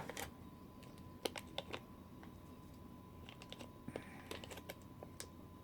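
Scattered light clicks and taps from hands handling a small plastic toy and its packaging, several in the first second and a few more later on.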